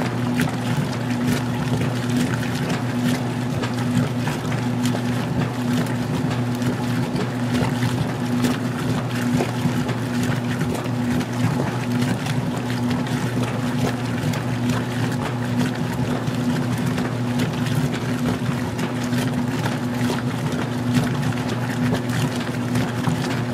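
Magic Chef 20-pound washing machine in its wash phase, agitating an extra-small load at its lowest water level: the motor runs with a steady hum while the water sloshes in the tub.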